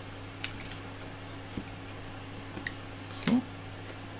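Faint clicks and rustles of cable connectors and wires being handled and pushed onto a circuit board's header pins, over a steady low hum. About three seconds in there is a brief louder sound with a short rise in pitch.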